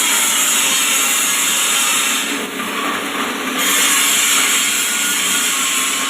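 Dry-leaf grinding machine running, a steady loud rushing noise over a low motor hum as it shreds dry leaves.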